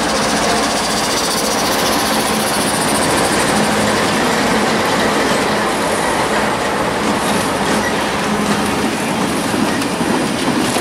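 Norfolk Southern freight train passing close by: the diesel locomotives, a GE Dash 9-40CW and then an EMD GP38-2, run loud and steady as they go by, followed by loaded tank cars rolling past. Their steel wheels click over the rail joints toward the end.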